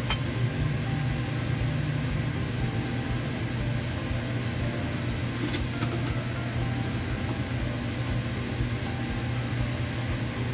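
Steady low mechanical hum with a constant hiss over it, and a faint click about halfway through.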